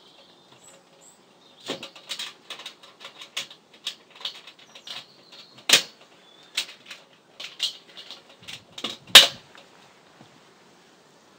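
Scattered clicks and knocks from hands handling the domed metal lid of a ProQ bullet smoker, with two louder knocks, one about six seconds in and one about nine seconds in.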